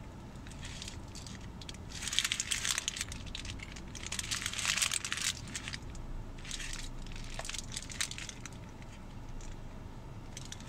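Eating sounds: a hamburger being chewed close to the microphone while its paper wrapper crinkles in the hands, in irregular bursts of crunching and rustling.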